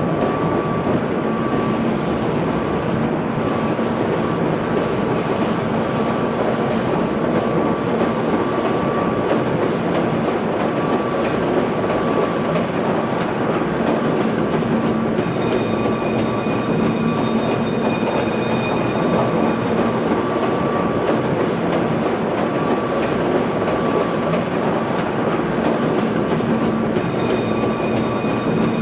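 Steady engine-room din of a running Rice and Sargent cross-compound Corliss steam engine: a continuous loud mechanical rumble with a steady hum. A few faint high whining tones join about halfway through.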